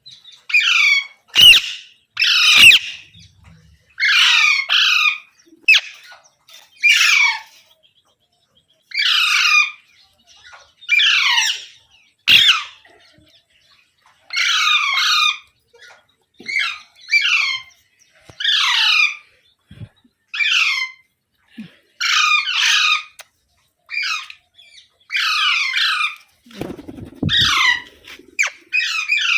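Pet Indian ringneck parrot (rose-ringed parakeet) giving harsh, screeching squawks over and over, often two in quick succession. Each call falls in pitch, and they come every second or two.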